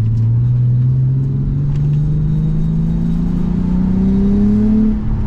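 Nissan 370Z's 3.7-litre V6 accelerating through an ISR Y-pipe and single-exit exhaust, its note rising steadily as the revs climb. The revs drop away about five seconds in.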